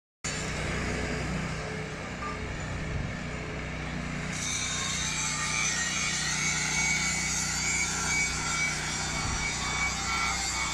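Diesel engines of heavy equipment running steadily, with a higher hiss joining in about four seconds in.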